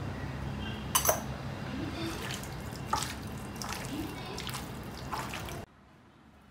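Hands rubbing and squeezing raw chicken pieces in a glass bowl to work in pepper and salt: a wet squishing, with a couple of sharp clicks about one and three seconds in. It cuts off suddenly near the end.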